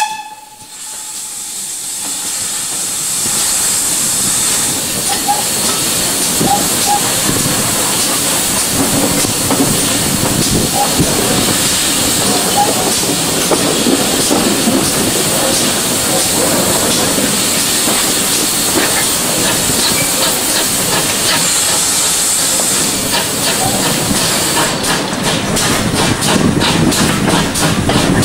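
GWR 57xx-class pannier tank steam locomotive working a train, heard from beside the cab: a steady loud hiss of steam builds up over the first couple of seconds as the whistle stops. Near the end the hiss drops away and a quick, regular beat of the running engine takes over.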